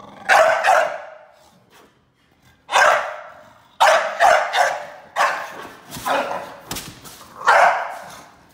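American Staffordshire Terrier puppy giving short, sharp play barks, about nine in all, some in quick twos and threes, with a pause of about a second early in the run.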